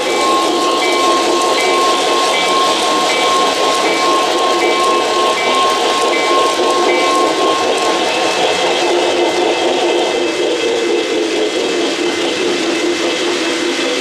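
O-gauge model trains running on the layout's track: a steady rolling rumble of wheels and motors, overlaid with electronic locomotive sound effects. For the first half a steady tone sounds together with a higher tone that pulses on and off about once every three-quarters of a second; after that both stop and other steady tones take over.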